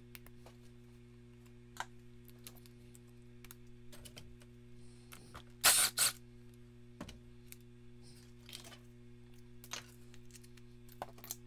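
Cordless drill-driver with a socket spinning the nut off the chainsaw's bar cover in two short bursts about six seconds in, with light clicks of handling before and after.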